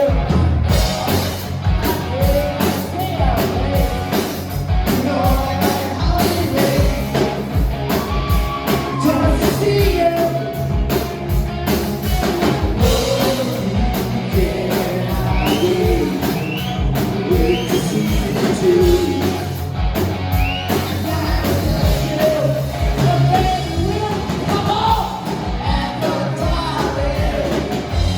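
Live rock band playing a song, with a lead singer over a steady drum beat and bass.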